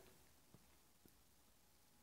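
Near silence: room tone, with two faint ticks about half a second apart.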